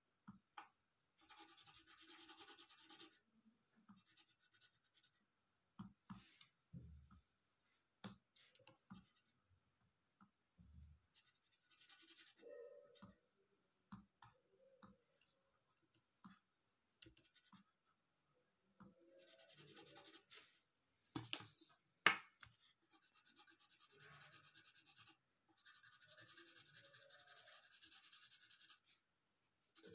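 Colored pencil scratching faintly across paper in runs of shading strokes. Scattered sharp clicks and knocks come between the runs, the loudest about two-thirds of the way through.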